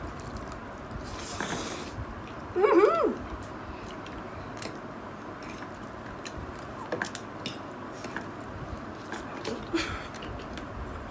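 Two people eating instant noodles with forks: chewing and slurping, with scattered clicks of forks against plates. A brief voice sound comes about three seconds in.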